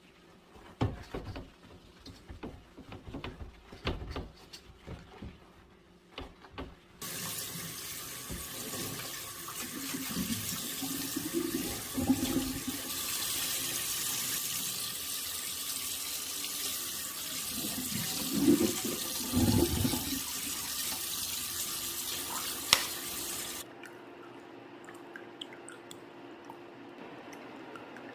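Kitchen faucet turned on into a sink after some clattering of items being handled, running steadily for about sixteen seconds with a few knocks of things being washed under it, then shut off, leaving a few drips.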